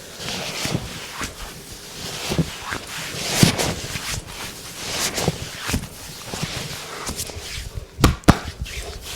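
Massage sounds: hands rubbing and sliding over skin in repeated strokes, with light knocks, then two sharp smacks about eight seconds in.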